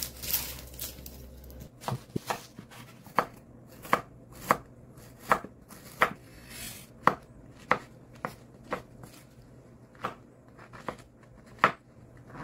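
Chef's knife cutting through red onion, ginger and mushrooms, each stroke ending in a sharp knock on a bamboo cutting board. The knocks come irregularly, about one to two a second, after a brief rustle at the start.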